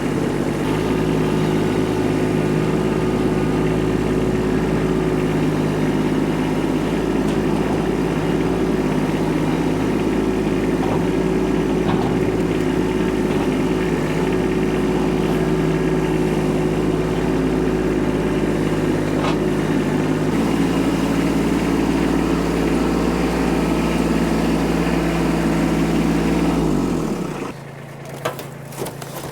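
Kubota tractor's diesel engine running steadily at a constant pitch. Near the end its sound drops away sharply, followed by a couple of faint knocks.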